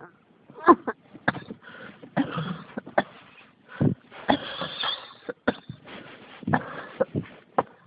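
A person coughing over and over in a fit: about ten hard coughs in quick succession, some coming in tight runs.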